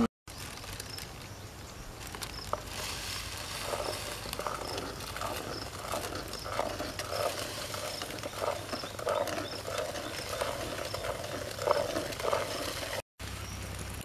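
A steel spoon stirring and scraping a steel pan of boiling milk over a wood fire, with irregular clicks and scrapes. Faint high chirps repeat in the background.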